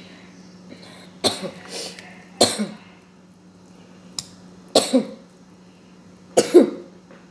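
A person coughing four times over about five seconds, each cough sharp and loud with a short rough tail.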